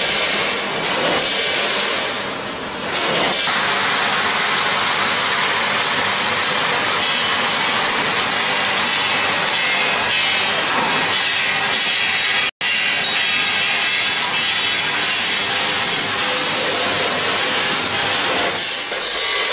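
Automatic snack packaging line running, a loud, steady, dense machine noise. It dips briefly about two and a half seconds in and cuts out for an instant about twelve and a half seconds in.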